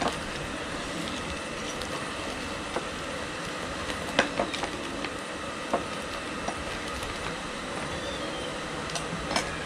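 Knife cutting through the crackling skin of a deep-fried pork leg, giving scattered sharp cracks and clicks over a steady rushing background noise.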